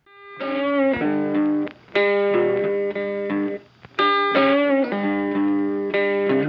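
Intro theme music led by guitar, a riff of held chords repeating in phrases about every two seconds with short breaks between them.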